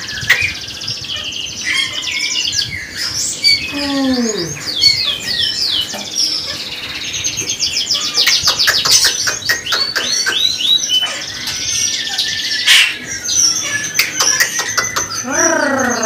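Caged songbirds, European starlings among them, chirping and whistling together. The mix has many sliding whistles and, about halfway through, a run of fast clicking notes.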